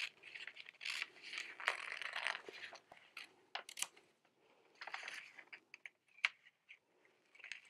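Old dressmaking scissors cutting through a paper pattern piece: quick crunchy snips and paper crackling in short runs, with brief pauses between.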